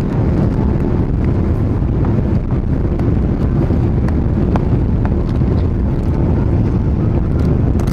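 Steady low rumble inside a Boeing 777-300's passenger cabin on approach to landing: engine and airflow noise, with a few faint clicks scattered through.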